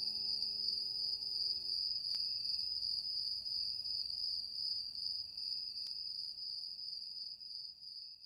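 Crickets chirping in a steady, unbroken night-time chorus. A last held chord of the song's music fades out in the first couple of seconds.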